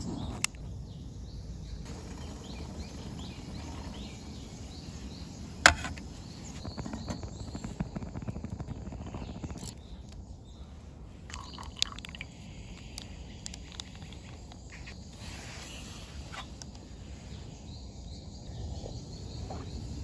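Small canister gas stove lit with a click of a long lighter, then its burner running with a low steady rush. Birds chirp in the background, and one sharp click sounds about six seconds in.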